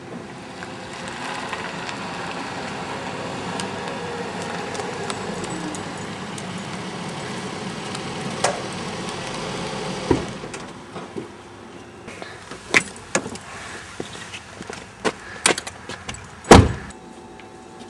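A white Chrysler Pacifica driving up a driveway and stopping. Its engine and tyre noise is steady and then drops in pitch as it slows, ending with a knock about ten seconds in. Several clicks and knocks follow, then a car door slams shut near the end, the loudest sound.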